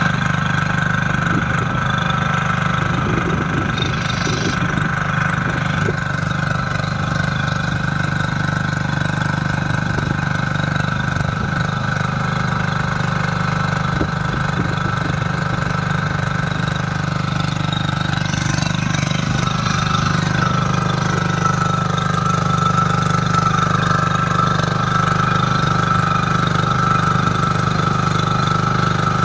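Small engine of a walk-behind rotary tiller running steadily while its tines churn the soil.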